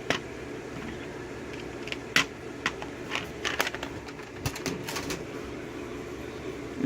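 Irregular sharp clicks and taps of small metal tools and lock parts being handled at a workbench while a DOM Euro half cylinder is taken apart, over a steady low hum.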